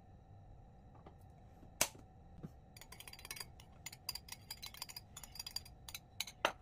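Metal spoon stirring sauce in a ceramic bowl: a quick, irregular run of light clinks as the spoon strikes the bowl's side, after a single sharp clink about two seconds in.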